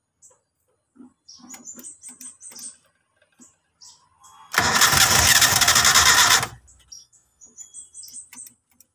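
Starter cranking a long-dormant carbureted car engine for about two seconds; it stops abruptly without the engine catching. The mechanic suspects the carburetor could be dirty.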